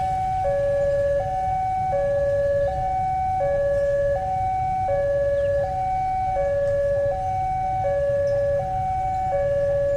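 Railway level crossing warning siren sounding a two-tone hi-lo pattern, a higher and a lower note alternating about every three-quarters of a second, over a steady low rumble. The siren signals that a train is approaching and the crossing is closed.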